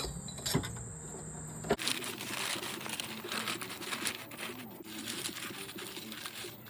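A few sharp metal clicks and knocks from the ATV engine's cylinder jug being worked off its studs, then a steady hiss with small ticks and faint low calls in the background.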